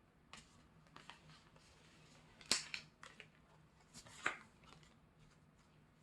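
Album packaging being handled: a scatter of light clicks and rustles of card and plastic, with two sharper clicks about two and a half and four and a quarter seconds in.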